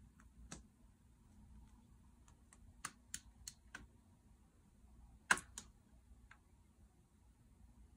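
Sharp plastic taps and clicks as a cat's paw smacks a plastic utility lighter. One tap comes about half a second in, then a quick run of four around three seconds, then the loudest pair about five and a half seconds in.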